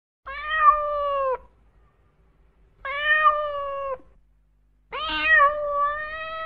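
A domestic cat meowing: three drawn-out meows, each about a second long, the last one longer.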